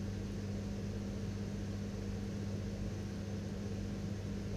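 Steady indoor room tone: a constant low mechanical hum over an even hiss, with no distinct events.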